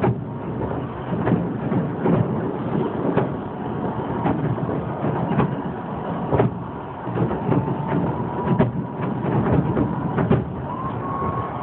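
Fireworks display going off: a continuous rumble of overlapping shell bursts, with sharper bangs at irregular intervals.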